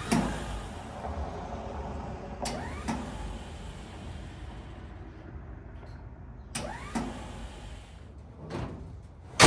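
1952 Dodge Wayfarer's starter motor whirring three times, each attempt starting with a click and rising in pitch as the starter spins up, while the engine does not turn over. This free-spinning whir is the whirring noise the owner is chasing, with a bad starter or worn flywheel teeth among his suspected causes. A loud thump comes right at the end.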